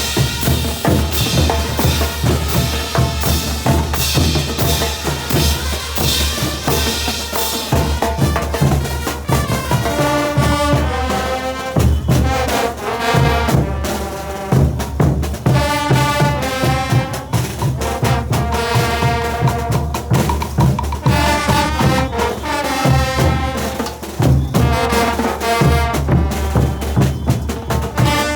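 Bolivian brass band playing: drums and cymbals carry the beat alone at first, then the brass comes in with the melody about ten seconds in, over a steady bass drum.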